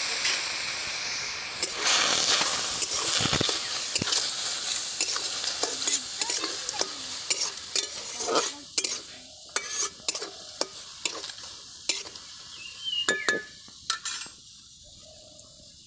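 Shelled snail meat sizzling in a steel kadai while a metal spatula stirs and scrapes it, clicking against the pan. The sizzle is strongest at first and dies down over the second half.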